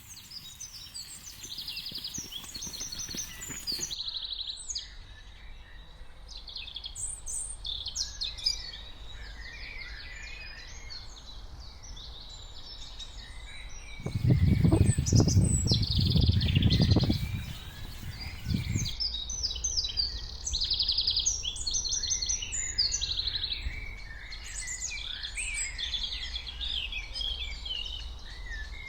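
Many small birds chirping and singing over a steady low background hum. About halfway through, a louder low sound lasts about four seconds.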